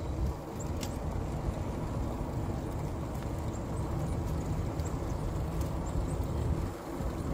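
Steady low rumble of an Aventon Aventure 2 fat-tire e-bike rolling slowly along the road while pulling a child trailer, with a few faint high ticks.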